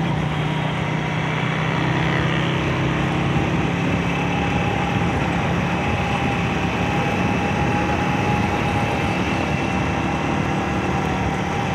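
Honda CG125's single-cylinder four-stroke engine running steadily while the motorcycle cruises, holding an even pitch, with wind and road noise rushing over a helmet-mounted microphone.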